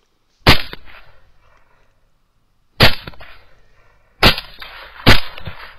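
Four rifle shots from a Lone Star Armory TX15 carbine in 6.5 Grendel, each a sharp crack with a short echoing tail. The last three come faster than the first two.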